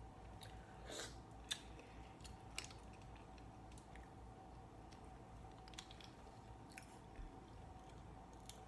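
Close-miked chewing and biting of shrimp and mussels from a seafood boil: scattered soft, wet clicks and crunches, a few louder ones about a second in. A faint steady hum runs underneath.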